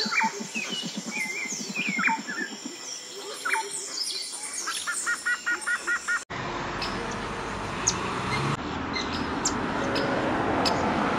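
Wild birds chirping and calling: short rising and falling whistles, with a quick run of six even chirps about five seconds in, over a low rapid pulsing in the first few seconds. About six seconds in this cuts off abruptly to a steady outdoor rush with scattered faint high clicks.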